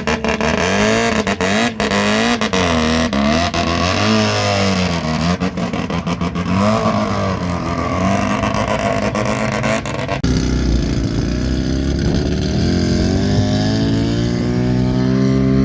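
Drift car engine revving hard, its pitch swinging up and down as the throttle is worked, with sharp exhaust pops in the first couple of seconds. About ten seconds in the sound changes abruptly to an engine climbing steadily in revs.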